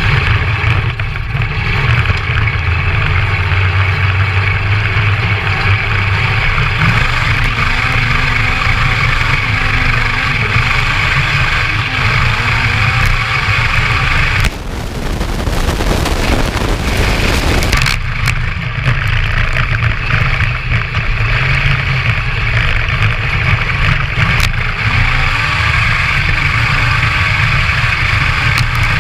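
Homemade crosskart buggy's Honda CBR1000 inline-four motorcycle engine running as the buggy is driven, heard from on board, revs rising and falling. A little past the middle the engine gives way for a few seconds to a rushing noise.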